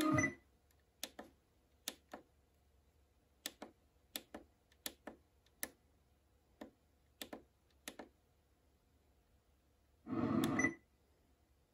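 Sharp, irregular clicks as the rotary knob of a car radio head unit is turned step by step to tune the FM band by hand, with the radio muted between steps. A little after ten seconds a short burst of station sound comes through for under a second, then cuts off.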